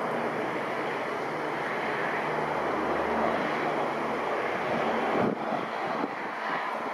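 Jet engines of a Boeing KC-767 tanker aircraft heard as a steady, broad roar while it banks overhead; the deeper rumble thins out about five seconds in.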